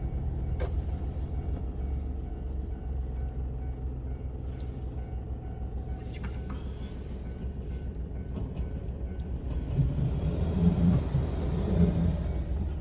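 Kishu Railway diesel railcar with its engine running, a steady low rumble that grows louder and rougher from about ten seconds in.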